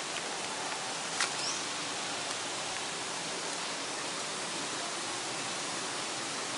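Steady, even hiss, with a faint click about a second in and a short high chirp just after it.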